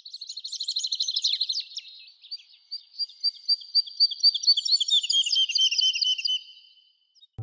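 A songbird singing: a fast trill for about the first second and a half, then a long run of quick, clear repeated notes that slowly fall in pitch, stopping shortly before the end.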